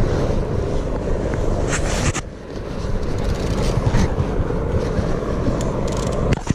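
Camera handling noise as the GoPro is gripped and pulled off its mount: a few knocks and rustles over a steady low rumble.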